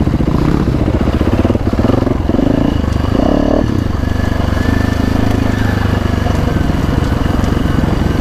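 Dirt bike engine running loud and close under throttle on a trail ride. Its speed rises and falls with the throttle, most noticeably between about two and four seconds in.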